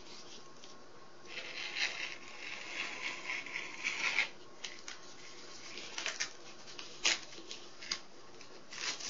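Small handling sounds of balsa strips and a craft knife on a paper-covered building board: a few seconds of light scratching, then several small sharp taps and clicks.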